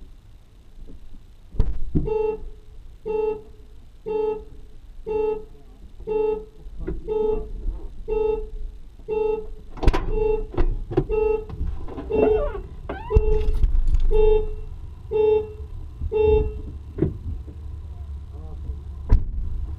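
A car horn sounding in short regular honks, about one a second, some fifteen times, the pattern of a car alarm going off. A few knocks and thumps sound among the honks.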